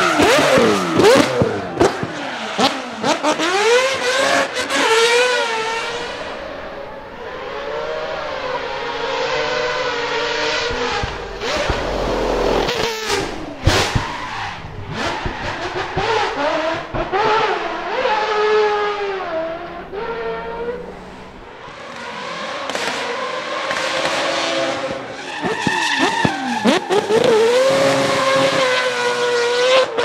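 Naturally aspirated, peripheral-ported 26B four-rotor engine of a Mazda RX-7 FD3S drift car screaming at high revs, its pitch rising and falling again and again as the throttle is worked through the drifts. The rear tyres squeal as they spin. The sound fades briefly twice, around 7 and 21 seconds in.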